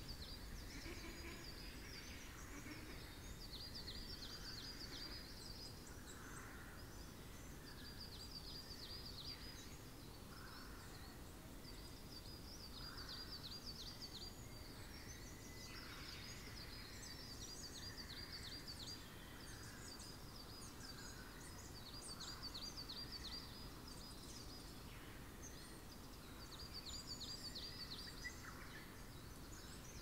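Faint wild songbirds: one sings a short, high trill of rapid notes, repeated every few seconds, with softer scattered calls from other birds over a steady low rumble.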